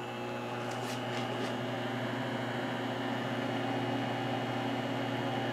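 Microwave oven running: a steady electrical hum.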